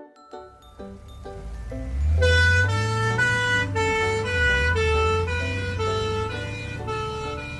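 Ambulance sound effect: an engine rumble builds, then from about two seconds in a two-tone hi-lo siren alternates between two notes about every half second.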